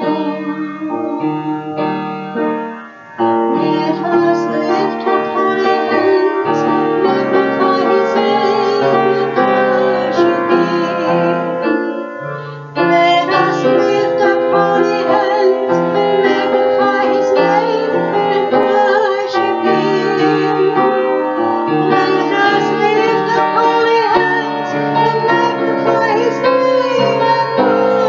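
A hymn sung by female voices with piano accompaniment. It breaks off briefly twice, about three seconds in and again near the middle.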